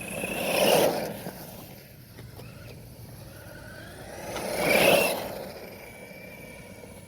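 FTX Outlaw RC car driving over the ground: its electric motor whines and the tyres scrabble in two loud swells, about a second in and again about five seconds in.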